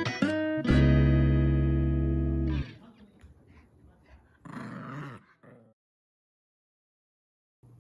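Background music with plucked guitar ends on a held chord about two and a half seconds in. A short dog sound follows near the middle, then silence, and a low steady hum starts near the end.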